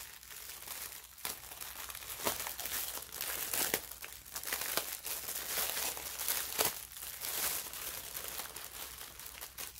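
Clear plastic packaging crinkling as it is handled and unwrapped, with many irregular sharp crackles.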